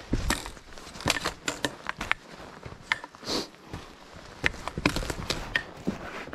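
A hiker's footsteps scrambling over rock and grit: irregular scuffs, crunches and clicks, with rustling of clothing or gear.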